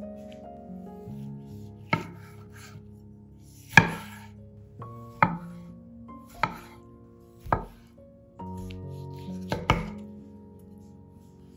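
A kitchen knife chopping on a cutting board in slow, separate cuts, about seven strikes roughly a second apart, over soft background music.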